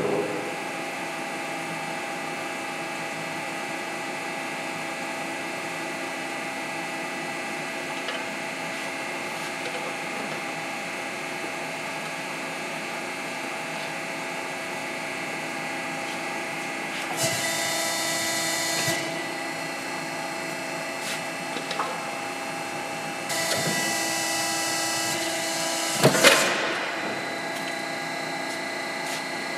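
Press brake running with a steady motor hum. Twice, about two-thirds of the way in, it gets louder for about two seconds as the machine cycles, and a sharp bang follows a few seconds before the end as the steel plate is bent.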